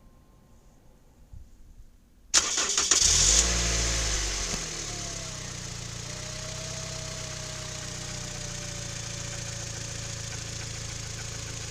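Toyota 3ZR-FAE 2.0-litre four-cylinder petrol engine started about two seconds in: a short crank, then the revs flare up and drop back. It settles into a steady idle by about the fifth second.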